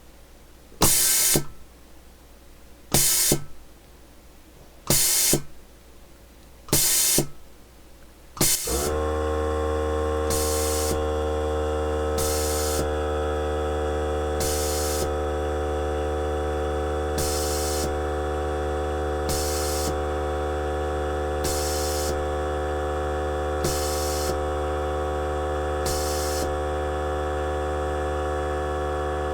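Desoldering tool pulsing in short hissing bursts about every two seconds. About nine seconds in its air compressor kicks on with a loud, steady hum that holds to the end, while the hiss bursts go on over it.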